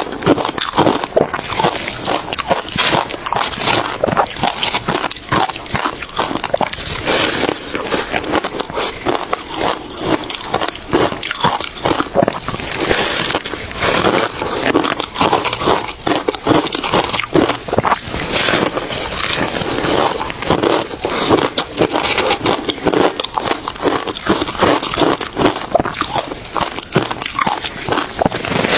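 Ice being bitten and chewed close to the microphone: a continuous, dense run of crisp, irregular crunches.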